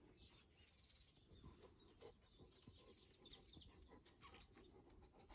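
Near silence: faint outdoor background with faint bird chirps and a few soft ticks.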